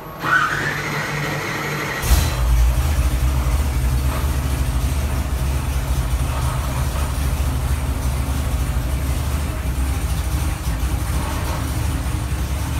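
GM LS 408 cubic-inch stroker V8 on an engine dyno being started: a short whine of cranking, then about two seconds in the engine fires and settles into a steady idle around 1,000 rpm.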